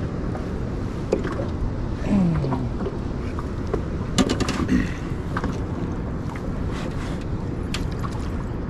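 Steady wind rumble on the microphone on an open boat, with scattered clicks and knocks, a short falling low tone about two seconds in and a quick run of clicks about four seconds in.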